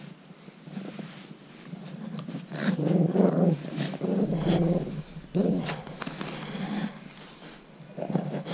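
Cavalier King Charles Spaniel puppy play-growling while it wrestles with a hand, in several loud bouts that start about two seconds in.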